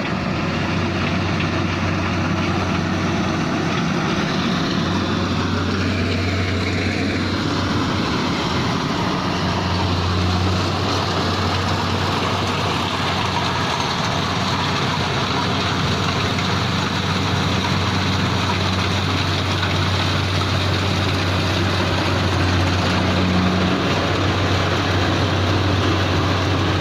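Combine harvester running steadily through a wheat harvest: a constant low engine hum under a dense rush of machinery noise.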